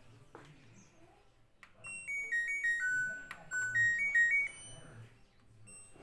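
Washing machine control panel playing a short electronic tune of clear stepped beeps, preceded by a click, as the machine is switched on.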